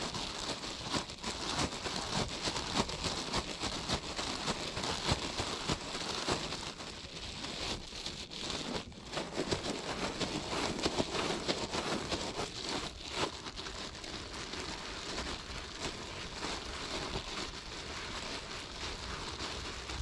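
Steady rain falling, a dense patter of many drops.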